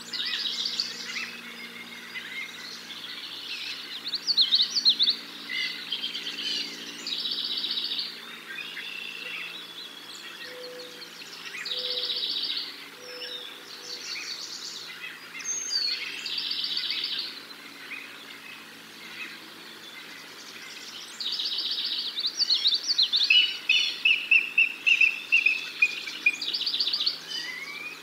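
Songbirds singing in the surrounding trees: short bursts of rapid, high notes repeated every second or two, with a fast trill near the end.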